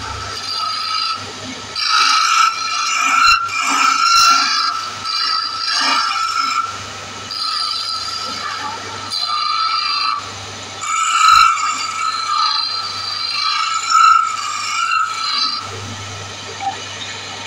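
Wood lathe running with a low motor hum while a small hand-held turning tool scrapes the spinning wooden workpiece, giving a high-pitched squeal in repeated bouts of a second or two. The squealing eases off near the end, leaving mostly the motor hum.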